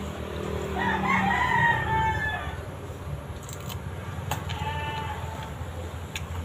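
A rooster crowing: one long crow of about two seconds starting about a second in, then a shorter call near the middle, over a steady low hum.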